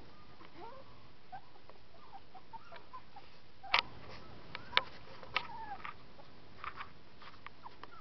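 Young puppies giving faint, short squeaks and whimpers here and there. Three sharp clicks, about four, five and five and a half seconds in, are the loudest sounds.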